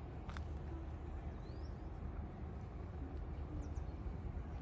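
Quiet outdoor ambience: a steady low rumble, with a few faint, short high chirps over it.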